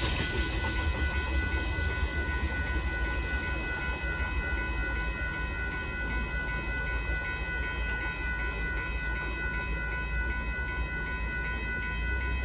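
Railroad crossing bell ringing steadily while the gates are down and the lights flash, over a steady low rumble.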